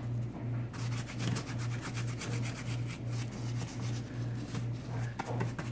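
A bristle paintbrush scrubbing paint onto the rough, lumpy surface of a paper clay pumpkin in quick, scratchy strokes. A low hum pulses steadily underneath, about twice a second.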